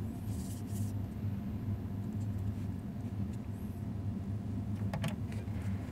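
Steady low background rumble, with a few light clicks of handling about half a second in and again about five seconds in.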